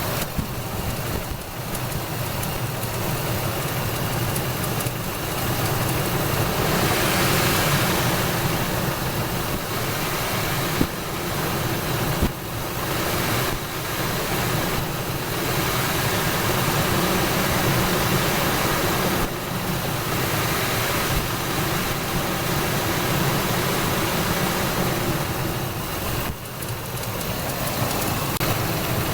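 Ford 5.4-litre modular V8 idling low, with the slappy, ticky noise from the front of the engine that comes and goes; the owner later pins it on worn timing chain tensioners (slack adjusters), not accessory bearings. A couple of sharp clicks are heard about midway through.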